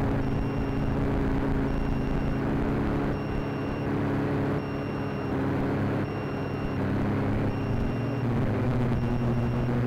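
Quadcopter's electric motors and propellers humming steadily in flight. A short high electronic beep repeats about once a second throughout, and the hum shifts pitch slightly near the end.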